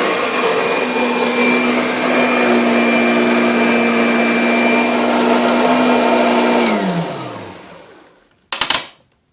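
Kirby Sentria upright vacuum cleaner running at a steady pitch. About two-thirds of the way in it is switched off and the motor winds down, its pitch falling away over a second or so. A short, sharp knock follows near the end.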